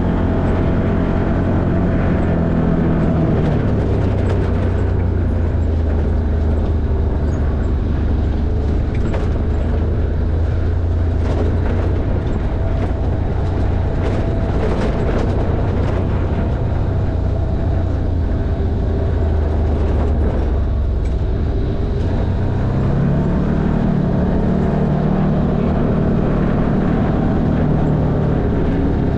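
Side-by-side off-road vehicle's engine running under way, its pitch dropping a few seconds in and climbing again near the end. Scattered clicks and knocks come through in the middle as it drives over the rough track.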